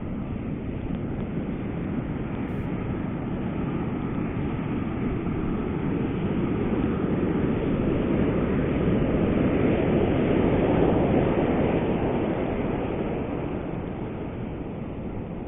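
Ocean surf rushing on the beach, a slow swell of noise that builds to a peak about ten seconds in and then eases off.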